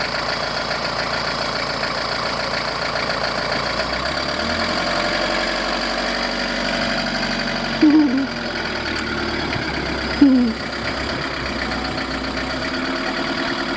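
Camper van engine running steadily, freshly fitted with a new timing belt, its low note changing about four seconds in. Two brief louder sounds rise above it near the middle.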